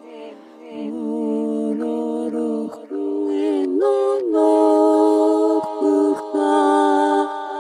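A cappella vocal music: several voices chanting long held notes together, the pitch gliding up to a higher chord about four seconds in.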